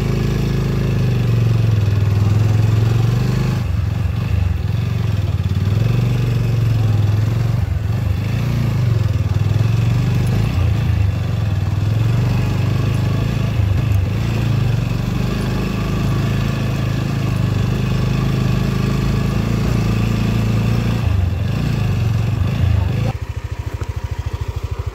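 Motorcycle engine running at low speed on a rough rocky dirt track, its note rising and falling with the throttle, with occasional knocks from the bike over stones. Near the end it drops to a steady idle.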